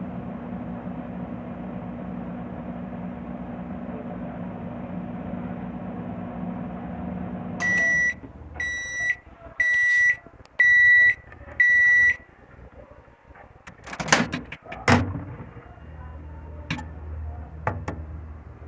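Midea MTA E21 microwave oven running a heating cycle with a steady hum, then stopping about eight seconds in and beeping five times as the cycle ends. Two sharp clacks follow a few seconds later.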